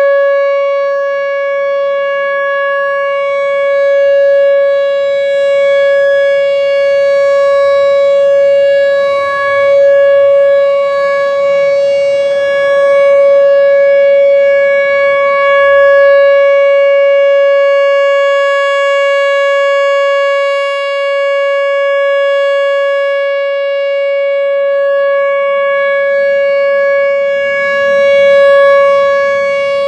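Whelen Vortex R4 electronic outdoor warning siren sounding its Alert signal: one steady, unwavering tone with many overtones, gently swelling and fading in loudness as the rotating speaker head turns.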